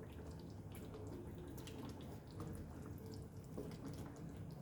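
Faint sizzling and crackling of chicken curry with diced onion and capsicum cooking in a pan, with small scattered pops and no added water.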